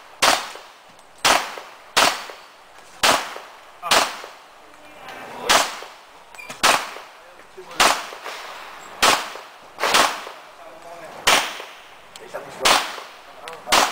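Pistol firing a string of about a dozen shots, a second or so apart at an uneven pace, each followed by a brief echo, as the shooter engages steel targets in a practical shooting stage.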